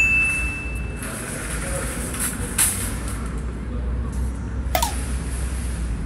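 Metal shopping carts clattering and knocking as a child drags one out of a row of nested carts, a few sharp knocks over a low wind rumble on the microphone. A high steady beep sounds for the first second.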